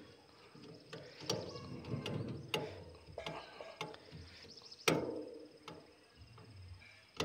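A screwdriver turning a screw in the metal feed-horn collar of a satellite dish, giving scattered clicks and short scrapes, the sharpest about five seconds in. A faint steady insect trill sits behind it.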